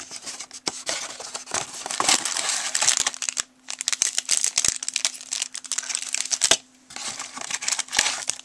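Cellophane candy-kit packets crinkling and rustling as they are handled and pulled out of a cardboard box, full of small crackles, with two short pauses, about three and a half and seven seconds in.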